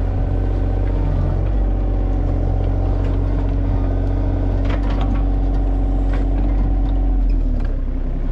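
Excavator's diesel engine running steadily, with a few knocks from the machine; the engine note drops a little near the end.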